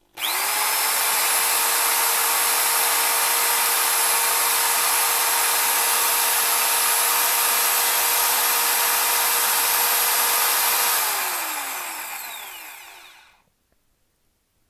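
Makita corded hammer drill running free with its trigger locked on. The motor spins up at once, holds a steady high-pitched whine for about ten seconds, then is switched off and winds down, falling in pitch over about two seconds.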